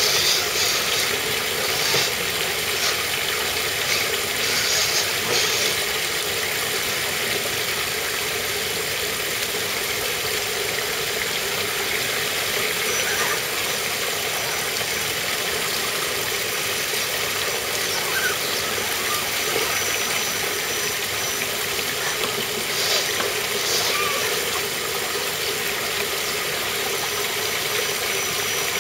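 Steady rush of a shallow stream spilling over a small rocky waterfall, with a few short whirs from the electric motors of scale RC trucks crawling through the water, mostly in the first few seconds and again near the end.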